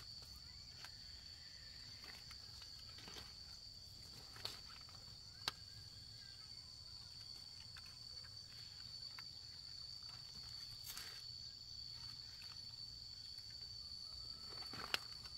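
Steady, high-pitched insect chirring in a pineapple field, with scattered sharp clicks and rustles from pineapple plants being handled as the fruit is picked.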